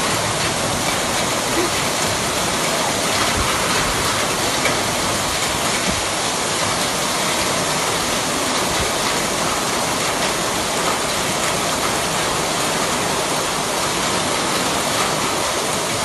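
Torrential rain pouring down in a loud, steady hiss.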